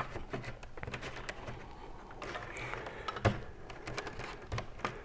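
A single 1.5 mm² PVC-insulated stranded conductor being fed down PVC conduit and drawn through at the switch box: irregular light clicks and rustling of the cable sliding against the conduit and box. One sharper knock comes about three seconds in.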